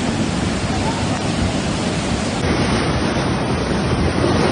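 Rushing floodwater: a loud, steady wash of turbulent water noise, changing slightly about two and a half seconds in.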